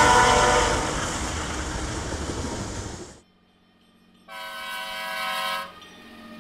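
Freight train rolling past, steady wheel-on-rail noise, with a diesel locomotive's horn chord dying away in the first second. After a sudden break and a short gap, a diesel locomotive sounds one horn blast of a little over a second, a chord of several notes, and then runs with a low steady hum.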